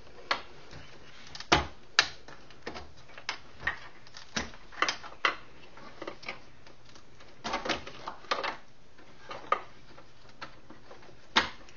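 Scattered sharp clicks and light knocks, about one or two a second and uneven, from plastic connectors being pulled straight up off a keyboard's logic board and from parts and tools being handled.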